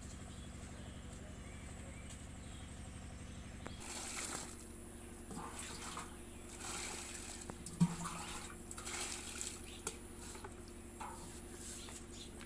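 Water scooped from a large metal pot with a steel bowl and poured into a plastic bucket, in several short splashing pours starting about a third of the way in, with one sharp knock in the middle. A steady low hum runs underneath.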